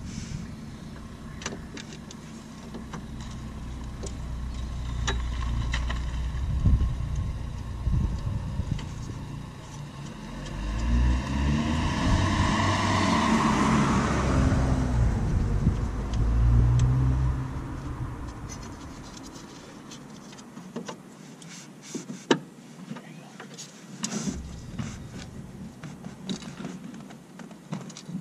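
A car drives past, its noise swelling over several seconds and then fading. Near the end come light clicks and taps of hand tools and parts.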